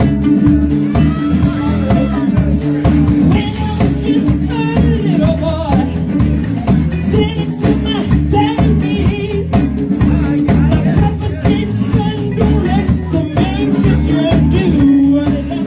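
Live rock band playing, with a singer over a drum kit.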